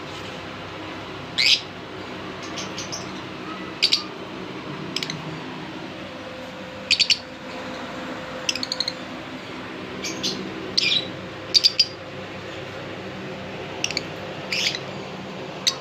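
Caged finches chirping: short, sharp high calls every second or so, some given in quick doubles and triples, over a steady low hum.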